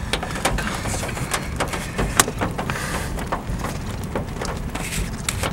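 Steady storm wind noise with irregular sharp taps of raindrops hitting the car.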